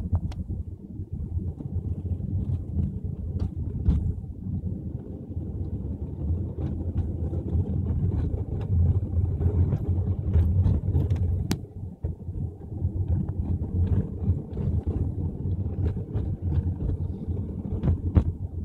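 Car driving at low town speed, heard from inside: a steady low rumble of engine and road noise, with scattered short clicks and knocks, dipping briefly about twelve seconds in.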